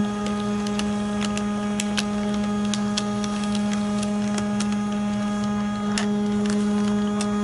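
Neat Desk ADF-070108 document scanner feeding a paper receipt through its sheet feeder: the feed motor runs with a steady low hum, with scattered light clicks.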